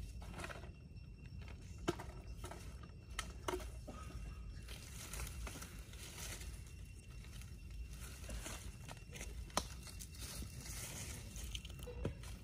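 Faint rustling and crackling in dry forest leaf litter, with a few sharp clicks, the loudest about two seconds and nearly ten seconds in, over a low steady rumble.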